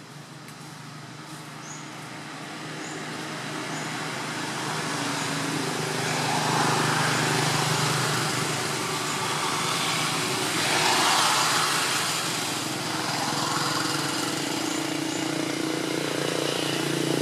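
Motor vehicle engine hum with road noise, growing louder over the first six seconds and swelling again about eleven seconds in.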